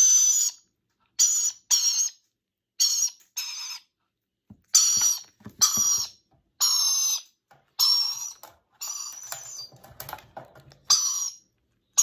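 Parrot chick being hand-fed from a syringe, giving about ten shrill, harsh begging calls in short bursts with brief gaps between them.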